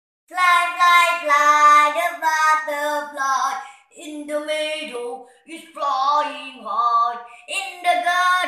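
A young girl singing a short song in several phrases, with some notes held and brief gaps between phrases.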